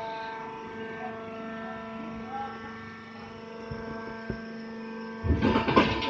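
Hydraulic wood-chip baler's power unit humming steadily as it presses a bale, with a sharp click about four seconds in and a loud noisy rush near the end.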